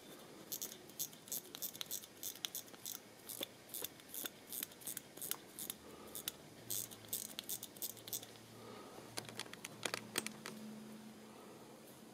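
Crisp ratchet clicks of a Vulcain Cricket caliber 120 wrist alarm watch being wound at the crown, coming in irregular runs of a few clicks a second, with a louder cluster about ten seconds in.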